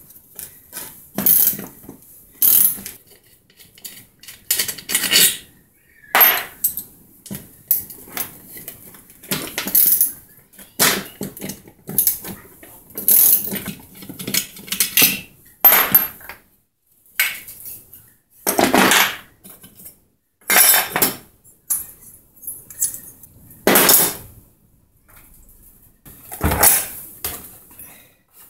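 Chainsaw engine parts and metal hand tools clinking and knocking on a workbench during disassembly: many short, irregular clinks and clatters, with a few louder knocks in the second half, one of them a dull thud near the end.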